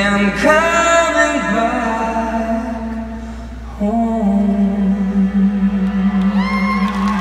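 A male pop crooner singing live into a microphone over an arena sound system, nearly unaccompanied: a phrase that slides up at the start, a short break, then one long held note with vibrato from about four seconds in.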